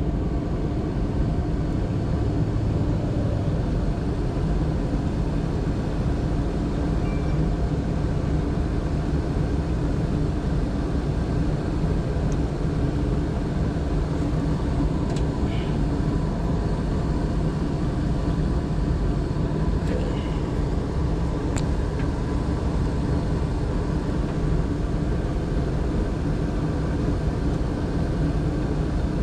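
Gas furnace running steadily during a tune-up: the inducer motor and blower give an even hum with burner noise under it. A few faint clicks sound over it.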